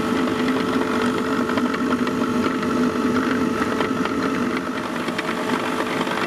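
Blower fan on a 7¼-inch gauge steam locomotive running with a steady hum, drawing the fire and hot gases through the boiler while steam is being raised.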